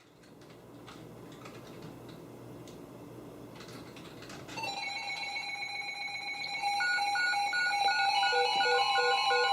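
Several NOAA weather radio receivers going into alert together, signalling an incoming warning. After a few seconds of faint room noise with light clicks, steady electronic alarm tones come on about halfway in, then fast pulsing beeps and another steady tone join, each step louder.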